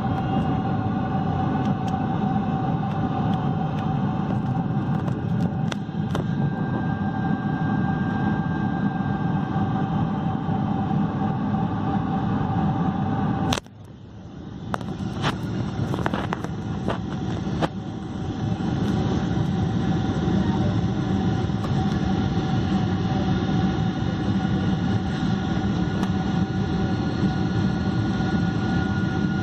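Steady cabin noise of a Boeing 747-400 with Pratt & Whitney PW4000 engines: a dense rush of airflow and engine noise with a steady whine running through it. About halfway through, the sound suddenly drops away and builds back up over a few seconds, with a few clicks.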